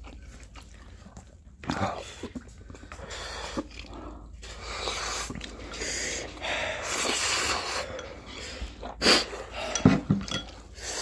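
Eating sounds: Samyang Buldak fire noodles being slurped and chewed, with heavy breathing through the mouth against the chili heat. A few short, louder sounds come near the end.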